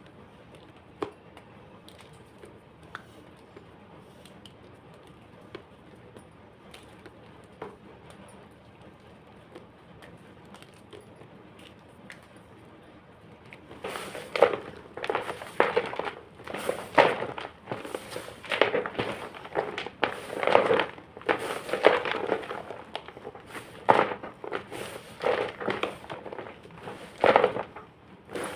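Homemade gym chalk crunching: a few faint clicks, then from about halfway, loud crisp crunches roughly once a second.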